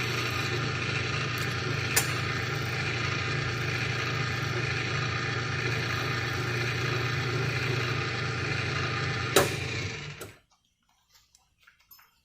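Ilco 017 automatic key duplicator running through a cutting cycle with a steady motor hum and mechanical whir, with a sharp click about two seconds in and a louder one near the end. The motor then cuts off suddenly about ten seconds in, and a few faint clicks follow.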